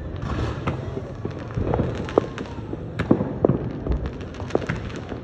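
Fireworks going off: a continuous low rumble of bursts with sharp pops and crackles scattered irregularly, and a few louder cracks.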